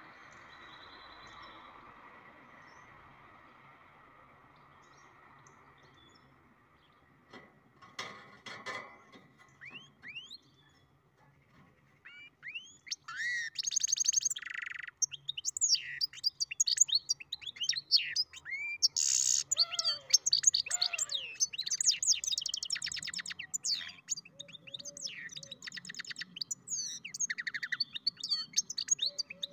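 Goldfinch × canary mule singing: a long, fast, varied song of twittering trills, quick whistled glides and buzzy rattles. It starts a little before halfway through, after a quiet stretch with only a faint hiss and a few light scratches.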